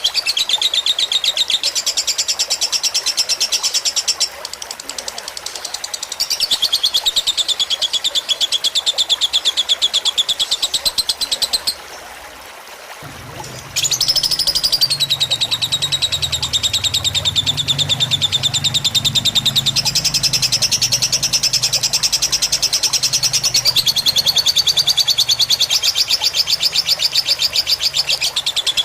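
Lovebird singing long, very rapid chattering trills, the drawn-out 'ngekek' song of a fighter lovebird, in long bouts with a pause of about two seconds near the middle.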